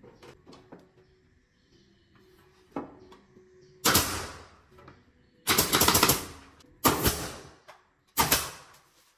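Pneumatic nail gun firing four times, about a second and a half apart, driving nails through wooden battens; each shot is a sharp crack followed by a short fading hiss. A few faint knocks come in the first three seconds, before the first shot.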